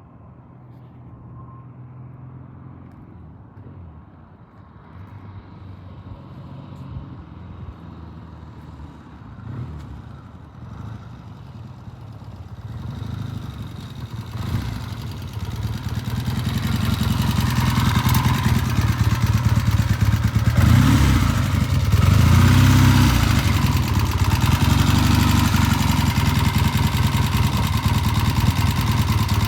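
Vintage oil-in-frame Triumph motorcycle engine growing steadily louder over about fifteen seconds as the bike approaches. It then runs close by, loud, with the engine speed rising and falling a few times. The engine is running smoothly.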